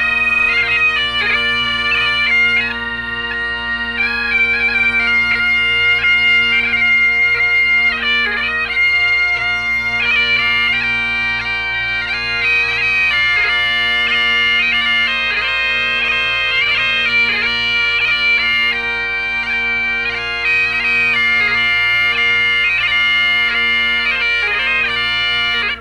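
Bagpipes playing a tune over their steady drones, the melody broken up by quick grace notes.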